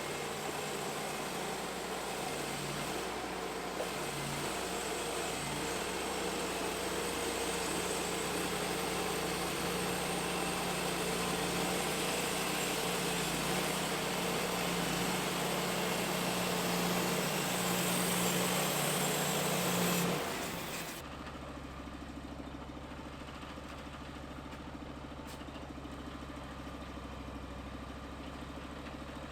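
Portable band sawmill's gasoline engine running at high speed while the band blade cuts through a log, with a dense steady hiss over the engine note. About twenty seconds in, it drops abruptly to a quieter, lower-pitched idle.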